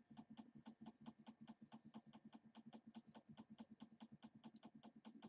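Computer mouse scroll wheel clicking faintly and steadily as a page is scrolled, about six or seven ticks a second.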